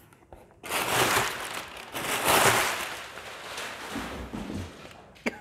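Crumpled kraft packing paper rustling and crinkling as hands dig through it inside a cardboard box, in several surges. A sharp tap comes near the end.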